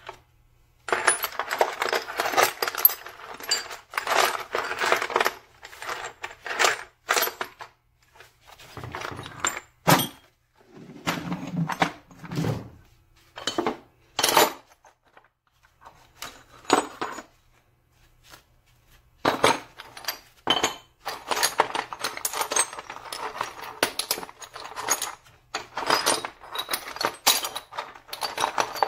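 Metal blocks and bar offcuts clattering and clinking against one another as hands dig through a plastic crate full of them. Dense runs of clinks at the start and again over the last third, with a sparser stretch in the middle holding a few duller knocks.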